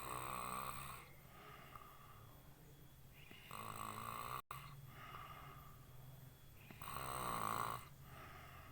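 A man snoring in his sleep: three loud snores, each about a second long, spaced about three and a half seconds apart.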